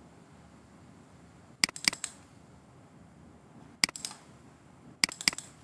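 Computer mouse button clicks: two quick clicks about a second and a half in, a single click near four seconds, and another pair about five seconds in, over faint steady hiss.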